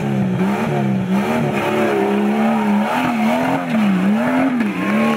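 Off-road 4x4's engine revving hard under load while climbing a steep dirt slope, the revs rising and falling over and over.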